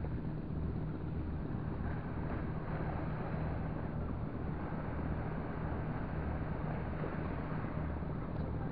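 A boat engine running steadily, a low hum that swells and eases about once a second, with wind noise on the microphone.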